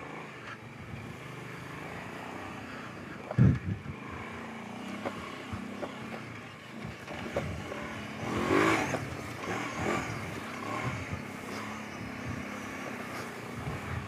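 Kawasaki Brute Force 750 ATV's V-twin engine running steadily, with a heavy thump about three and a half seconds in and scattered knocks, and a brief louder swell near the middle.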